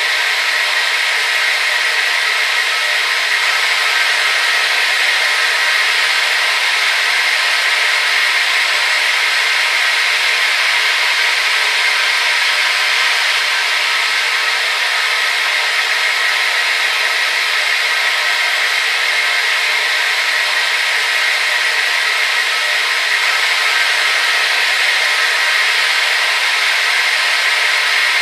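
Hair dryer blowing steadily, an even airy hiss with a faint whine near its middle, no change in speed.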